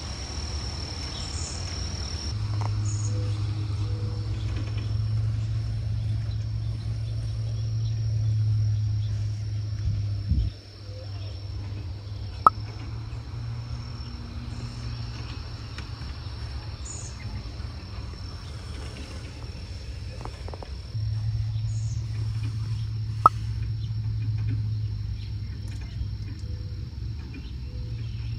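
A steady high insect trill, with a louder low hum underneath that stops about ten seconds in and comes back in the last third. Two sharp clicks are heard, one near the middle and one past two-thirds.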